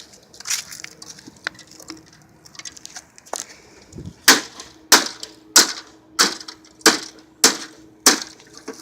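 Repeated hard blows on an air conditioner, some light clattering and knocks at first, then from about halfway through a steady run of sharp strikes about every 0.6 s as it is being smashed.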